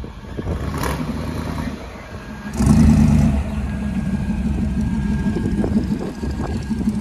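Rat-rod sedan's engine rumbling as the car drives slowly past, revved once sharply about two and a half seconds in and again near the end.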